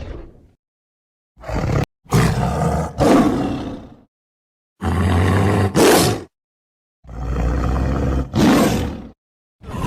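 A series of tiger roars: a roar fading out at the start, then four separate roars of a second or two each, divided by gaps of dead silence, with another beginning at the very end.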